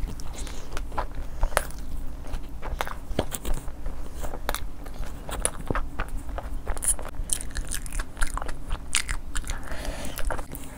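Eating sounds: crisp, crunchy food being bitten and chewed, a dense run of irregular crunches and crackles.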